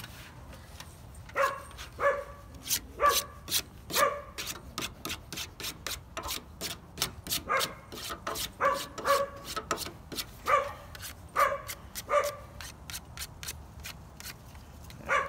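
A dog barking repeatedly, about a dozen short barks in loose runs. Under them are quick scraping ticks of a handheld sharpener drawn along the edge of a plastic CD.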